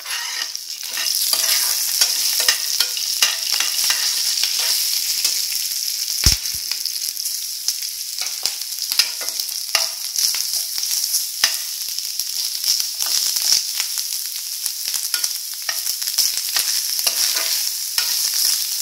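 Grated coconut and spices sizzling in hot coconut oil in an aluminium frying pan, with a metal spoon scraping and tapping against the pan as they are stirred. One heavier knock comes about six seconds in.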